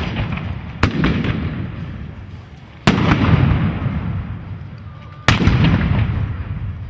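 Three loud black-powder shots, about two seconds apart, each trailing off in a long rolling echo.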